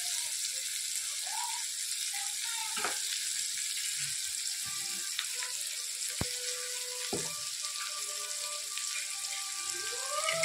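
Chopped onions frying in a mix of butter and oil in a wok, a steady sizzle, with a few faint clicks.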